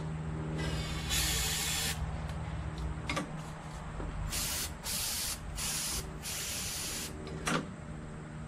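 Aerosol can of starting fluid hissing as it is sprayed into a lawn tractor engine's carburetor: one burst about a second in, then four short bursts in quick succession. This is priming the engine for a start attempt, since the choke is seized.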